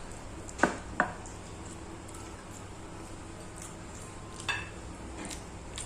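Tableware sounds while eating: two sharp knocks about half a second apart near the start, then a short ringing clink of utensil on plate past the middle.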